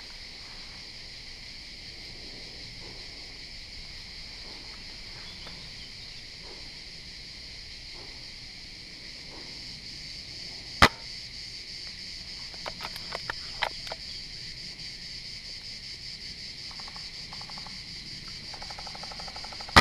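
Steady high-pitched chorus of insects, with a single sharp shot about eleven seconds in from a Tokyo Marui VSR-10 G-Spec spring-powered bolt-action airsoft sniper rifle. A few quieter clicks follow a couple of seconds later.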